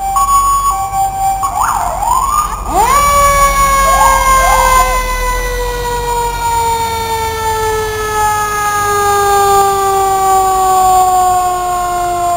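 Fire engine siren. A few short rising whoops come first; then, about three seconds in, a long wail jumps up in pitch and slides slowly and steadily down, with brief rising chirps laid over it.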